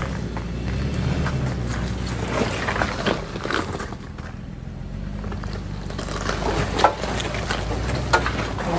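Off-road SUV engine running steadily at low revs while crawling a trail, with scattered knocks and clicks over it, the sharpest about seven and eight seconds in.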